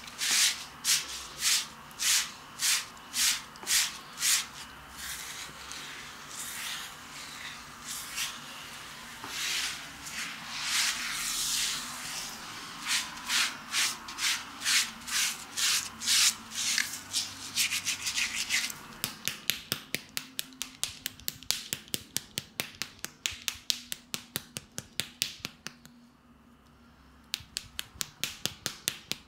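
Small bristle brush scrubbing back and forth over a lathered chest in rhythmic, scratchy strokes. The strokes come about two a second at first, then turn quicker and shorter, about three a second, in the last third, with a brief pause near the end.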